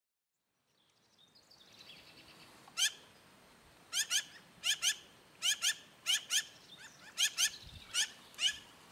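Black-billed magpie calling: a string of short calls, mostly in quick pairs, about a dozen in all, beginning about three seconds in.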